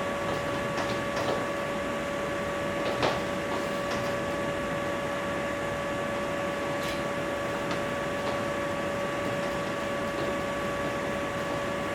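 Steady room and recording hiss with a constant electrical whine at three fixed pitches, broken by a few faint short clicks, about three and seven seconds in.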